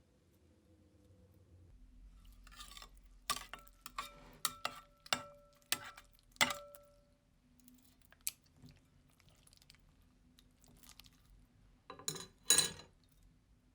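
A utensil clinking and scraping against a mixing bowl as slime ingredients are stirred: about half a dozen sharp knocks, some leaving a brief ringing note from the bowl, then two more knocks near the end.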